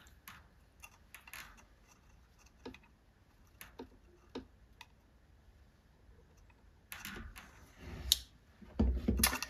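Scattered light clicks and taps of hand tools and small metal parts being handled, then denser rustling and a few louder knocks near the end.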